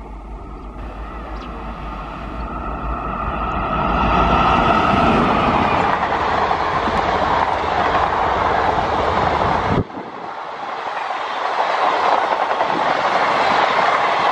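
Passenger train hauled by a WAP-5 electric locomotive approaching through a station, growing steadily louder. About ten seconds in the sound cuts abruptly to another train's coaches passing close by, wheels running on the rails, rising again.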